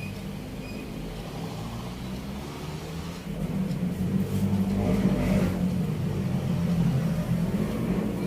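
A motor engine running steadily, growing louder about three seconds in.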